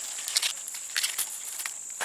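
Dry, papery corn husks and leaves rustling, with a few short sharp crackles, over a steady high-pitched insect drone.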